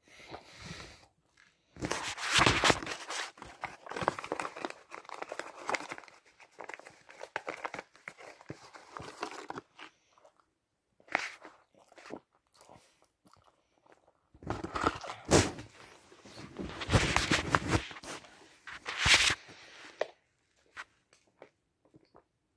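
Gum being chewed with the mouth close to a phone's microphone: loud, clicky chewing noises in two long stretches, one about two to ten seconds in and another from about fourteen to twenty seconds.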